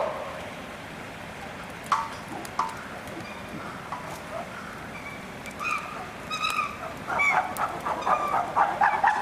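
Animal calls outdoors: a few scattered short calls, then, from about seven seconds in, a quickening series of short pitched calls that grows louder.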